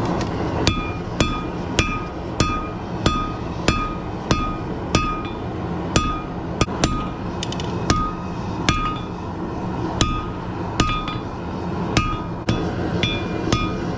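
Hammer striking hot rebar on an anvil in a steady rhythm of about three blows every two seconds, each blow ringing with a bright metallic tone, as the bar is drawn out. A steady low rumble runs underneath.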